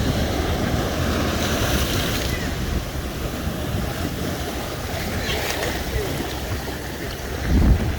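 Wind buffeting the microphone over waves washing in shallow water, with a stronger gust near the end.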